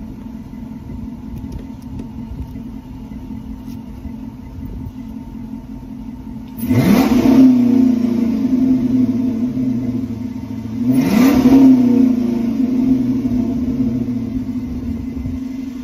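2006 Dodge Charger's 5.7 Hemi V8, heard at the tailpipe, idling and then revved twice, about 6.5 s and 11 s in, each rev held a few seconds before settling back. The engine is burning off a Sea Foam treatment, pushing thick white smoke out of the exhaust.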